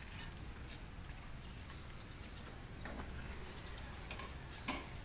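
Quiet background noise: a steady low rumble, one short high chirp about half a second in, and a few faint light clicks later on.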